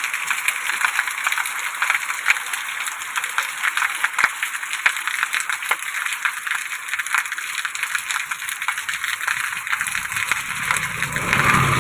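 Rain falling steadily, a dense patter with many sharp individual drop hits. A low rumble comes in near the end.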